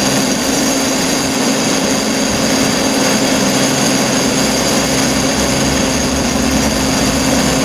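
Great Orme Tramway's steel hauling cable running over the pulley wheels between the rails, a steady whirring hum with several high whining tones over it.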